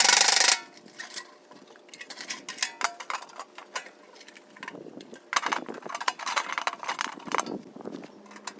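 Metal clinking and clattering as sheet-metal pail-can parts are handled, with a short loud burst of noise in the first half second and a busier run of knocks later on.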